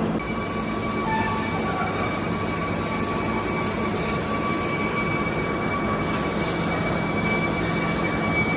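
Industrial machinery running steadily: a loud, dense noise with a low hum and a steady high whine that sets in just after the start.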